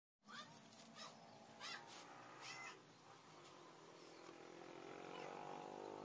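Sooty-headed bulbul calling faintly: four short, chirpy phrases in the first three seconds. After them, a low droning hum grows louder.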